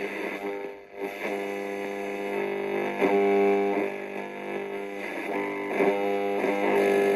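Guitar music playing through the small speakers of an Aiwa boombox tuned to a radio station, thin with little bass. The sound dips out briefly about a second in, then the music carries on.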